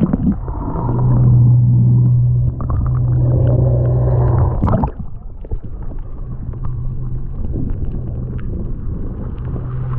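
Muffled rumble heard through water from a camera held below the surface, with a steady low hum of the boat's motor and water gurgling. A sharp splash about five seconds in, after which the sound is less muffled, with water and the motor's hum coming and going.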